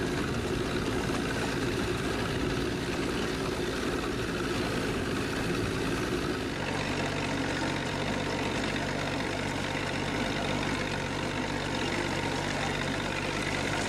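A boat's engine running steadily under way, mixed with a rush of wind and water. Its low, even hum stands out more clearly from about halfway in.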